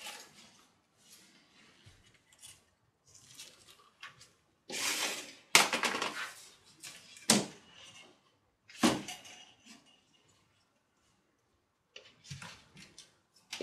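Plant pots and saucers being handled and set down: a few sharp knocks and clatters, with a short rustling noise about five seconds in.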